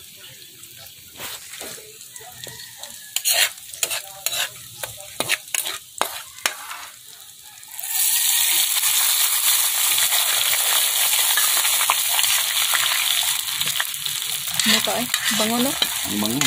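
A metal ladle clicking and scraping in a steel wok of garlic frying in butter, with faint sizzling. About eight seconds in, a sudden loud, steady hiss and fizz as the hot garlic butter is poured from the wok into a bowl, the ladle scraping the pan's side.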